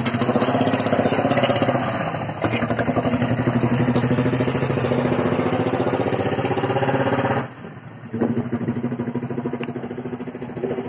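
The 10.50 engine of a home-built sanedo mini tractor running at a steady idle with an even, rapid chugging beat. The sound drops away for a moment about seven and a half seconds in, then picks up again.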